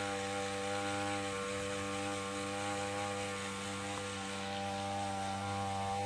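Motorized pesticide sprayer running steadily: a constant machine hum with the hiss of chemical mist spraying from the nozzle.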